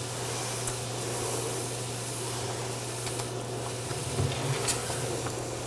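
Wooden spoon stirring hot turkey stock into a butter-and-flour roux in a stainless steel pan: a steady soft sizzle of the simmering gravy, with a few light scrapes of the spoon against the pan and a steady low hum underneath.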